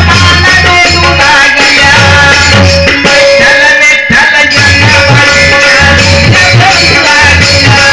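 Indian folk-style music: a hand-drum beat under a melodic line over a steady held tone, with a brief dip about four seconds in.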